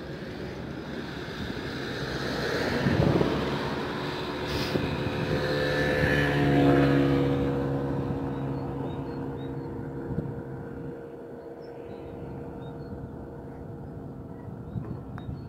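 Motor vehicles passing close by, probably on the road at the vantage point: the noise swells and fades twice, loudest about three and seven seconds in, the second pass with a steady engine drone.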